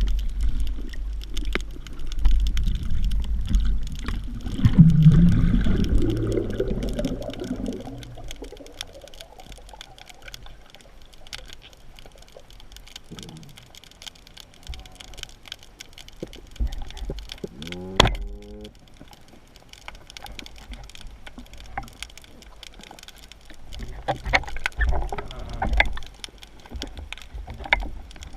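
Water churning and sloshing around the microphone during spearfishing, with scattered clicks. Loud low rumbling for the first several seconds, then quieter, with one short rising tone about eighteen seconds in.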